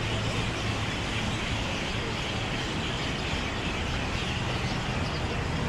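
Steady city background noise: a continuous low mechanical hum under a traffic-like din.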